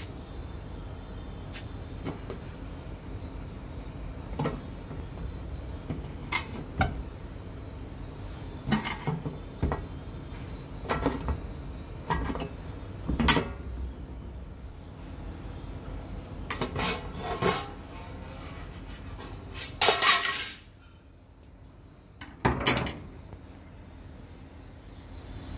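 A knife blade prying at the round lid of a square metal tin: irregular sharp metallic clicks and short scrapes a second or two apart, with a louder scrape lasting about a second roughly three-quarters of the way through as the lid works loose.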